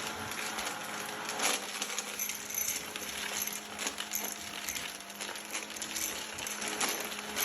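Vacuum cleaner running steadily, with small bits of debris clicking and rattling as they are sucked up.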